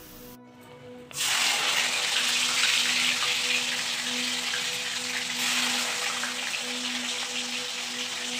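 Soaked and drained split chickpeas (chana dal) deep-frying in a kadai of hot oil: a loud, steady, crackling sizzle that starts about a second in, the oil frothing hard around the wet dal.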